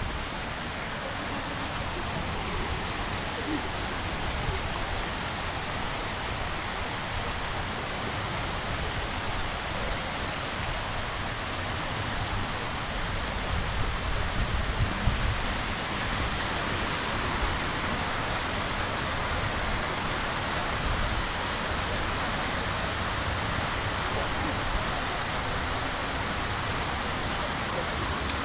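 Steady rush of fountain water falling and splashing down a cascade, with an uneven low rumble underneath.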